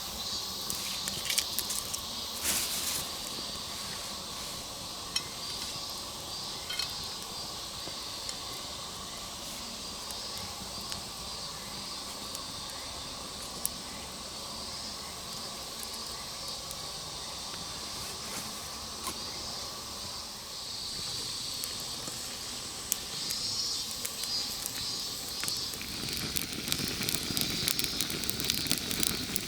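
Wood campfire crackling with scattered sharp pops over a steady high hiss, growing fuller and louder near the end.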